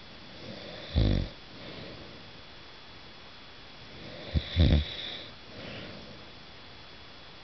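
A sleeping man snoring: two loud, short snores about three and a half seconds apart, with softer breathing between them.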